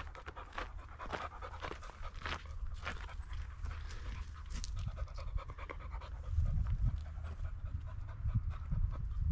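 A dog panting in repeated short breaths, over a low rumble that swells in the last few seconds.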